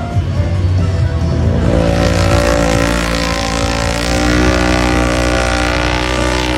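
Engine sound of an off-road vehicle, running steadily at a held pitch, added as a sound effect for a toy car.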